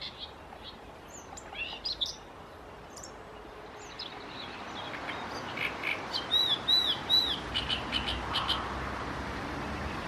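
Common whitethroat giving a few short song notes in the first couple of seconds. Then a great reed warbler sings a run of loud repeated notes for about three seconds in the second half, over a steady background hiss.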